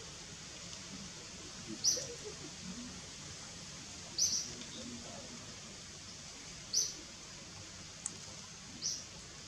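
A bird's short, high chirp repeated four times, about every two seconds, over a steady outdoor hiss.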